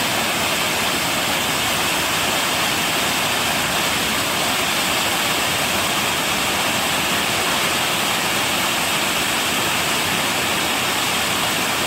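Jägala waterfall: water pouring over the falls in a steady, even rush that does not change.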